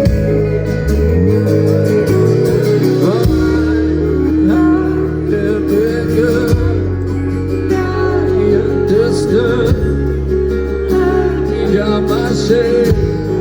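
Rock band playing live: guitars, bass and drums, with a wavering lead melody over sustained bass notes.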